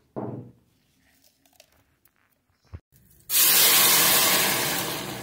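Blended tomato and chipotle sauce poured into a hot pot, sizzling loudly as it hits, starting about three seconds in and slowly dying down. Before it, a couple of short knocks.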